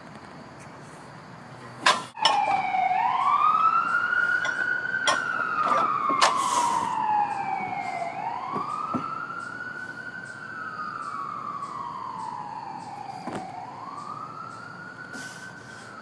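Emergency-vehicle siren in a slow wail, its pitch rising and falling about every five seconds. It starts suddenly about two seconds in, right after a sharp click.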